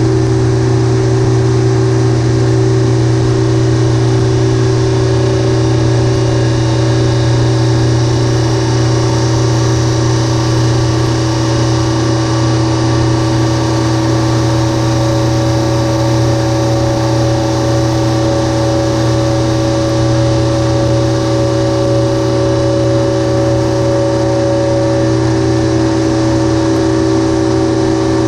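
Refrigeration condensing unit running: a 20 HP Copeland compressor with its condenser and head fans, giving a loud, steady deep hum with a few higher steady tones over it.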